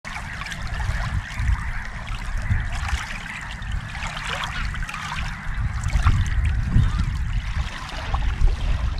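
Water trickling and splashing, with low wind rumble on the microphone.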